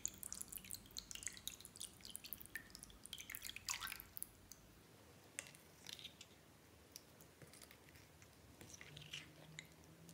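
Clear slime in a glass dish being mixed with a spatula as a clear liquid is poured in: soft, wet clicks and squelches, thickest in the first four seconds and sparser after.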